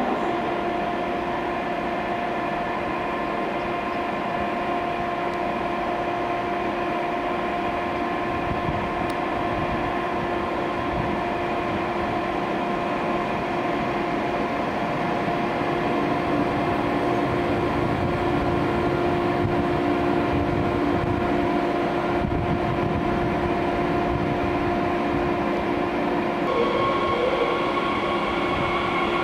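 Red Bombardier Talent 2 electric multiple unit moving slowly past a station platform, its electrical equipment giving a steady hum with several whining tones that hold their pitch over the rumble of the train. Near the end a higher whine joins in.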